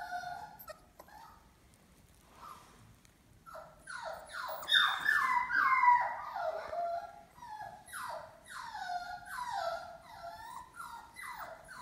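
Poochon puppies whining: a string of high whimpers, each sliding down in pitch, briefly, then after a pause of about two seconds coming thick and loud from about four seconds in.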